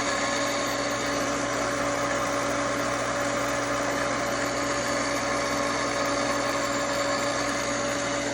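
Small electric motor driving a primer pocket reamer, running steadily with an even hum.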